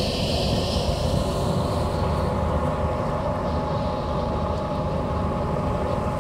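A boat's engine running steadily, heard from on board: a continuous low rumble with a thin steady hum.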